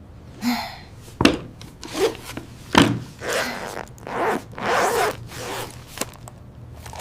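A run of rasping, scraping swishes, about six of them, with a few sharp clicks between.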